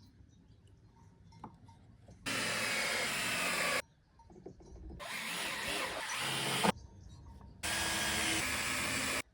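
Power drill working pallet wood in three bursts of about a second and a half each; the middle one builds up and ends in a sharp click.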